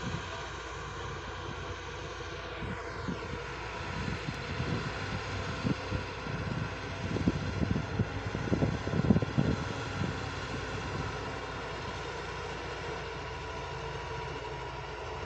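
Diesel engines of tipper trucks and hydraulic excavators running at a sand pit, a steady drone with a few held tones. An uneven low rumble swells in the middle and is loudest about nine seconds in.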